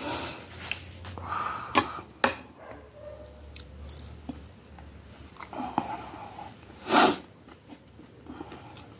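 A person eating close to the microphone: biting into and chewing a breaded chicken cutlet, with sniffles from a nose running from chili-hot food. There are a couple of sharp clicks about two seconds in and a loud, short rush of breath or sniff about seven seconds in.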